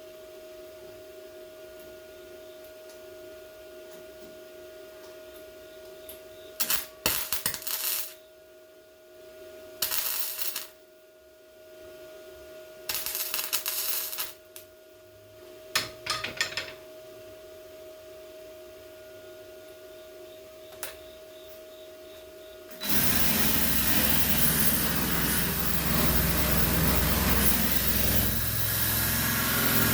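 Short bursts of MIG welding on sheet-metal patch panels, four tack welds a few seconds apart, over a steady electrical hum. Near the end comes a longer, louder continuous burst of metalworking noise lasting about seven seconds.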